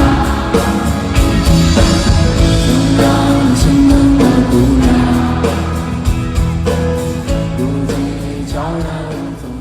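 Background pop song with a singing voice over a steady beat, fading out near the end.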